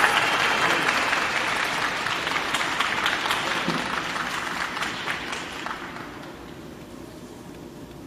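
Audience applauding, many hands clapping, dying away over about six seconds to a low steady hiss of the rink.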